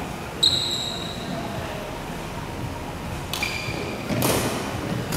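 Sneakers squeaking on a badminton court floor. One sharp high squeak comes about half a second in and fades over about a second, and a shorter one comes past the three-second mark. A short scuffing burst follows a little after four seconds.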